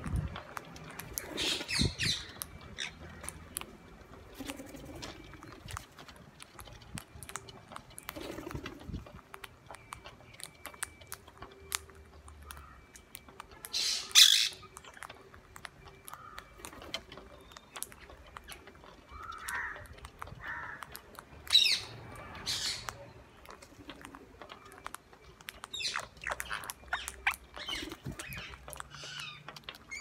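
Rose-ringed parakeets feeding together: a handful of short, loud squawks spread through, the loudest about halfway and about two-thirds of the way in, over a steady patter of small clicks from their beaks cracking seeds and pecking on concrete.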